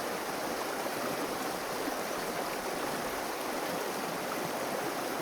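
Running water of a stream or small waterfall: a steady, even rushing.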